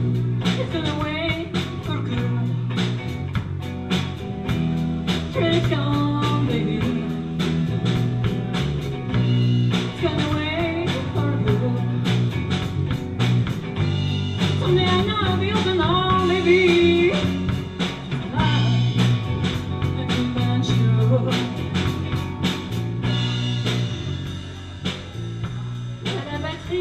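Live rock band playing a slow blues, with drum kit, bass and electric guitars, and a lead melody that bends up and down in pitch.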